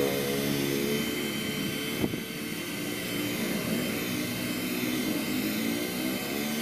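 Handheld hair dryer running steadily: a rush of air over the whine of its small fan motor. A single sharp knock about two seconds in.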